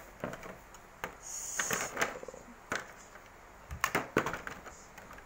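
Irregular clicks, knocks and crinkling of a clear rigid plastic packaging tray being handled, with a short rustle about a second in.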